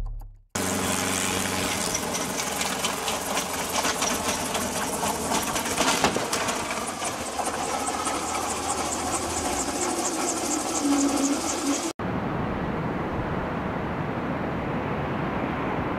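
Small piston-engine helicopter running on the ground, its engine and turning rotor making a fast, even mechanical rattle. About three-quarters of the way through, an abrupt cut gives way to the steady, duller rush of an Airbus A380's jet engines on approach.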